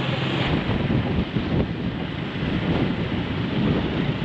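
Wind buffeting the microphone of a moving motorbike, a steady rushing rumble, with the bike's engine and road noise underneath.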